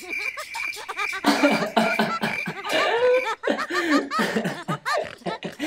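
Laughter in short breathy bursts. A thin, high beep pulses about four times a second behind it through the first half.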